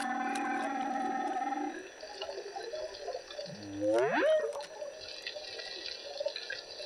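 Humpback whale calls heard underwater: a held, steady moan for the first couple of seconds, then about four seconds in a whoop that sweeps steeply up from low to high pitch, over a faint underwater crackle.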